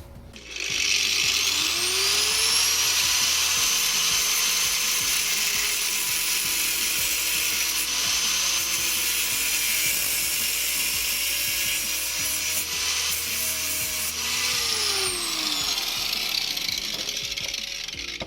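A grinder spinning up, cutting to shorten a suspension wishbone bush that is too long to fit the chassis, then spinning down near the end. Its motor note rises as it starts and falls away as it stops.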